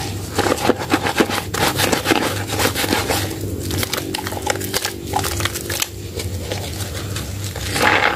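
Hands squeezing and kneading soaked, mushy Medicare White soap in thick lather, making wet squishing and dense crackling of foam in repeated bursts. It eases off for a couple of seconds near the end, then comes back louder.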